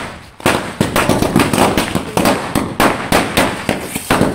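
A string of firecrackers laid on the ground goes off in rapid, irregular bangs, after a brief lull just at the start.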